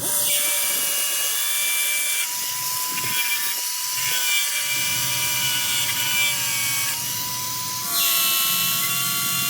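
A power tool or machine tool running with a steady high whine over a hiss. About eight seconds in, the whine steps up slightly in pitch and grows louder.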